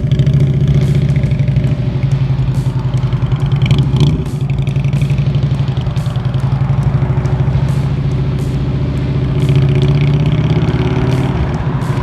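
Harley-Davidson bagger's V-twin engine idling steadily with a fine, even pulse.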